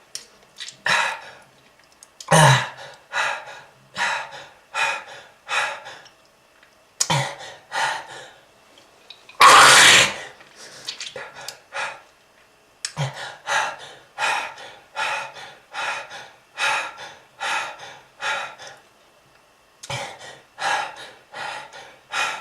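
A smoker's coughing fit: a person coughs over and over, about two harsh coughs a second, in runs with short pauses for breath. About ten seconds in comes one longer, louder cough.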